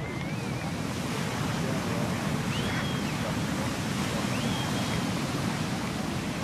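Ocean surf washing steadily onto the beach, with a few faint high calls in the distance.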